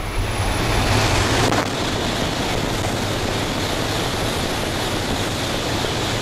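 Shinkansen bullet train passing through a station at high speed close by: a loud rush of air and wheels that builds quickly, with a sharp thump about a second and a half in, then a steady roar with a faint high whine as the long train goes by.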